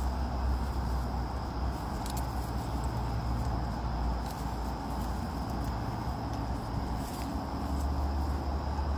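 Steady outdoor background noise: a low rumble with a hiss above it and a faint, steady high tone, plus a few faint clicks.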